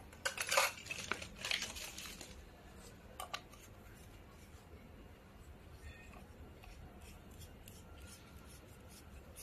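Plastic packaging and bubble wrap rustling and crinkling in a quick run of bursts as parts are handled, then a single light click a little after three seconds.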